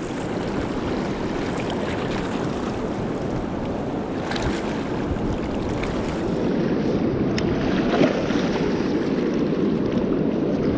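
Steady rush of a high, fast river current running below a low dam, with some wind on the microphone. A few faint sharp clicks, the clearest near the end.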